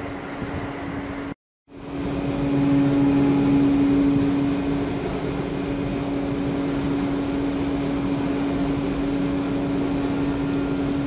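Steady machinery hum aboard the Maersk Montana container ship: a constant low drone over an even rushing noise. It drops out for a moment about a second and a half in, then comes back a little louder for a couple of seconds.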